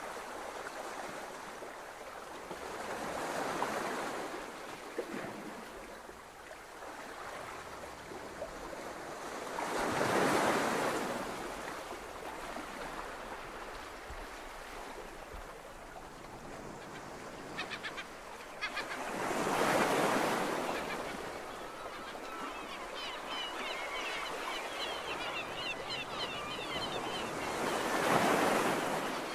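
Ocean surf washing onto a beach, each wave swelling and fading about every eight to ten seconds. Short high chirps join in during the last few seconds.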